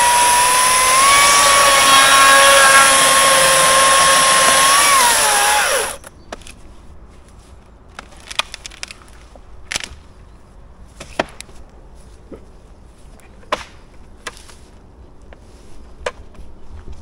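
Chainsaw revving up and running at a steady high pitch for about five seconds, then its pitch drops as it winds down and stops. Afterwards only a few faint scattered clicks and cracks.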